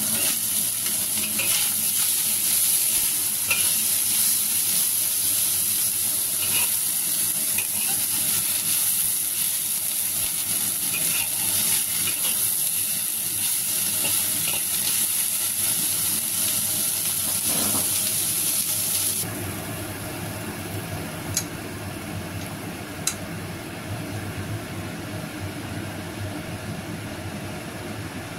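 Shredded cabbage, carrots and meat sizzling in a hot wok as they are stir-fried, with a spatula scraping and clicking against the pan. About two-thirds of the way through, the sizzle drops off suddenly, leaving a quieter, lower steady noise and two sharp taps.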